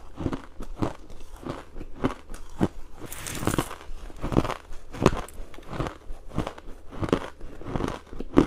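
Crunchy ice being bitten and chewed: a run of sharp crunches, about two a second. A little after three seconds in, there is a longer, hissier crackle.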